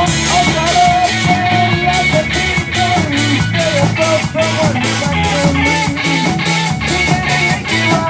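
Rock band playing live: electric guitars over a drum kit keeping a steady beat of about three hits a second.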